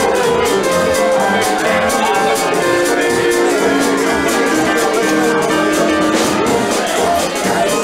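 A jazz band playing, with held melody notes over a pulsing bass line.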